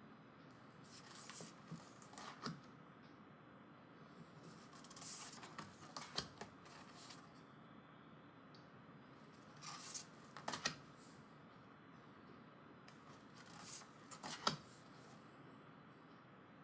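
Thick matte paper postcards being handled: faint sliding rustles and light taps as cards are moved and set down, in four short clusters a few seconds apart.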